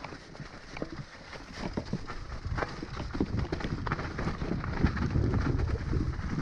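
Mountain bike rolling fast down a rocky dirt trail: tyres crunching over loose stones, with a dense, irregular run of knocks and rattles from the bike over a low rumble that grows louder in the second half.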